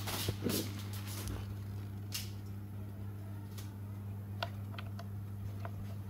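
Workshop machine motor humming steadily, with a scattering of light clicks and taps.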